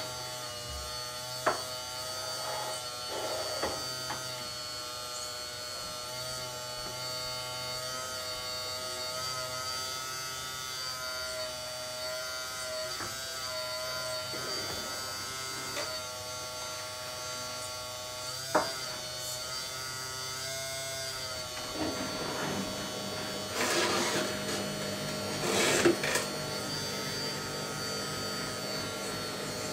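Small electric hydraulic pump of an RC Caterpillar M322D model excavator running with a steady whine while the boom and arm move, with a few sharp clicks. About two-thirds through the pitch of the whine shifts, then two louder rushing surges come a couple of seconds apart.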